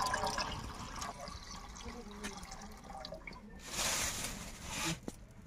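Water poured from an aluminium pail into a large aluminium cooking pot, trickling and dripping as the pour ends. About three and a half seconds in, a louder rushing hiss lasts just over a second.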